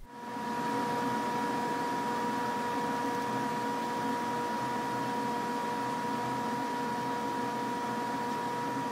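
Steady hum of a running machine with a constant whine, fading in at the start and then holding level.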